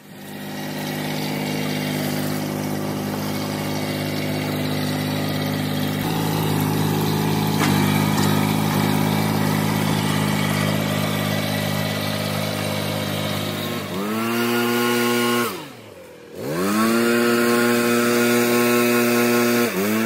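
A small engine running steadily at high revs; near the end it is throttled down and revved back up, once deeply, with the sound almost dying away, and once briefly.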